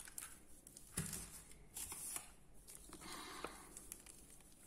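Faint rustling and a few light clicks of hands handling small bead-craft supplies and plastic packaging on a table.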